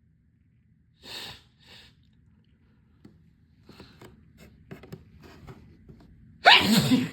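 A person's loud, wet sneeze near the end, a sudden burst with a falling voiced cry, after two short breathy intakes of breath earlier on.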